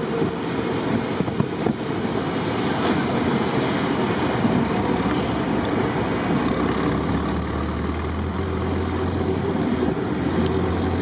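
Willys jeep driving on asphalt, heard from its open cab: a steady engine drone mixed with road noise. A low hum grows louder about seven seconds in.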